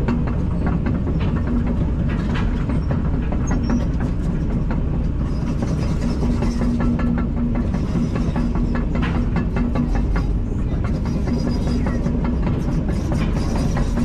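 Kobelco 210LC-9 excavator running steadily, with an on-and-off hum and frequent clanks and rattles throughout.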